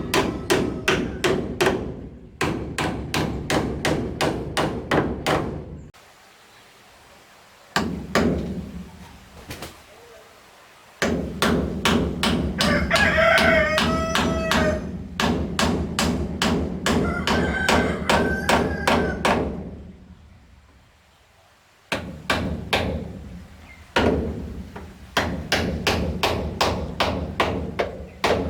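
Rapid hammer blows, about four or five a second, in runs of a few seconds with short pauses. A rooster crows twice midway through.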